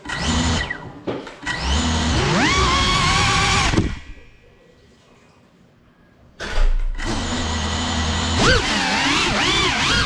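Cinelog35 cinewhoop's brushless motors whining as they are throttled up on the floor, twice, the second time rising in pitch. After a short lull they spin up again, and the pitch swings up and down as the drone flies. Heard close up through the camera on the drone itself.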